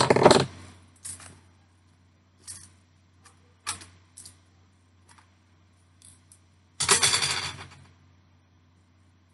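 Small metal jump rings rattling and clicking inside a clear plastic compartment box as it is handled and shaken, with louder rattles at the start and about seven seconds in and scattered light clicks between.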